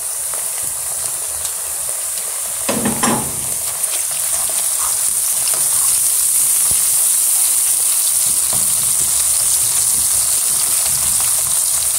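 Chopped onion sizzling in hot oil in a pan while a wooden spatula stirs it, with a steady high hiss. About three seconds in there is a brief louder burst of noise, and after that the sizzling stays somewhat louder.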